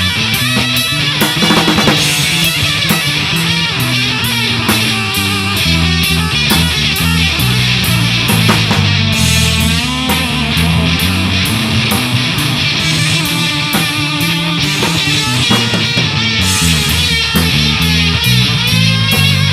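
Live rock trio playing an instrumental passage: electric guitar playing bent notes over bass guitar and a drum kit keeping a steady cymbal beat.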